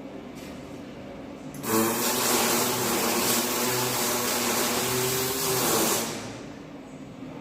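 Electric welding arc burning for about four seconds, starting a little under two seconds in and stopping suddenly about six seconds in. It is a steady hiss with a low hum under it. A quieter steady hum is left before and after.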